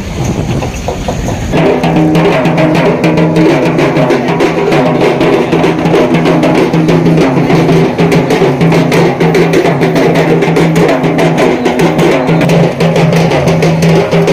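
Fast, loud drumming with a steady low pitched drone underneath, starting abruptly about a second and a half in.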